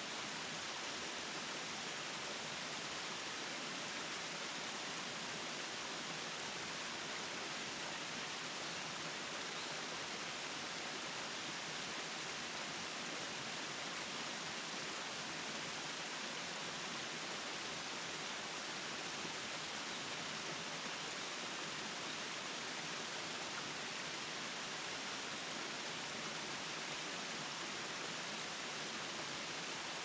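Tall, narrow waterfall making a steady, even rush of falling water.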